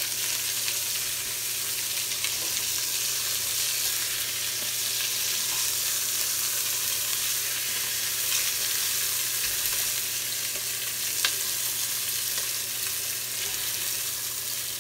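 Browned lamb pieces and oil sizzling steadily in a hot stainless steel pot while a slotted spoon scoops through them, with a sharp click or two of the spoon against the pot.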